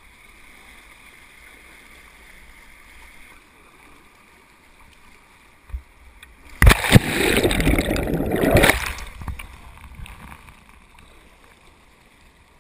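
Kayak on a rippling river: a faint steady rush of moving water, then, a little past the middle, about two seconds of loud splashing of paddle water over the boat and camera that opens with a couple of sharp knocks, then fades back to the low rush.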